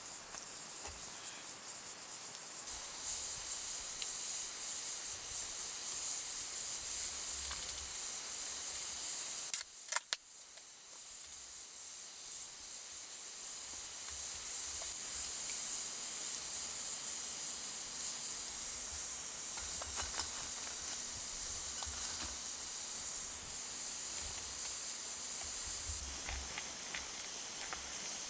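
Wood campfire burning, with a steady hiss and occasional sharp crackles. The sound drops out briefly and suddenly about ten seconds in.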